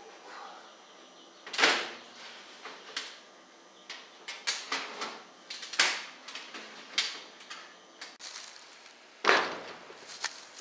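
Insulated stainless steel chimney pipe knocking and scraping against metal as it is worked up through the hole in a tin roof: an irregular string of sharp clanks and scrapes, the loudest about two seconds in and again a second before the end.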